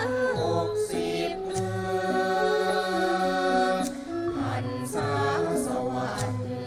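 Women's chorus singing a Thai royal praise song, accompanied by a Thai classical ensemble of khlui bamboo flute and gong circles, with a few sharp percussion strikes.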